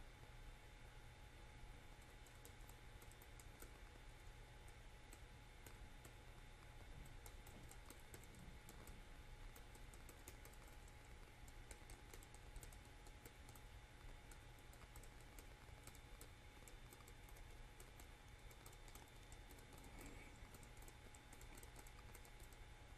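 Faint typing on a computer keyboard: an irregular run of light keystroke clicks.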